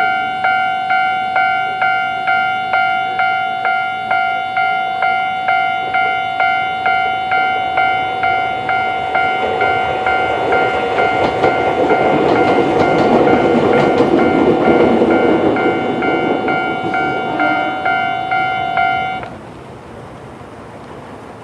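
Japanese level-crossing alarm ringing its standard electronic 'kan-kan' tone at about two strikes a second while a Fukushima Kotsu 1000 series electric train passes over the crossing. The train's rumble swells and fades in the middle, and the alarm cuts off suddenly about nineteen seconds in as the crossing clears.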